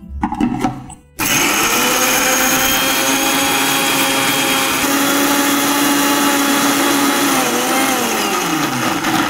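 Electric mixer grinder grinding roasted coconut masala with water into a paste: a brief clatter as the steel jar is set on the base, then the motor starts suddenly at full speed and runs steadily for about six seconds before it is switched off and winds down with a falling pitch.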